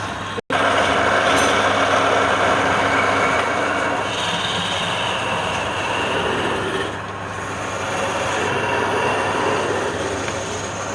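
Wood lathe running steadily, a low motor hum under the hiss of wood being cut on the spinning workpiece. The sound drops out for an instant about half a second in.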